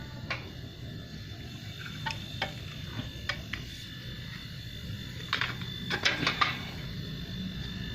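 Repurposed refrigerator compressor humming steadily, with several sharp clicks and knocks over it, clustered about five to six seconds in.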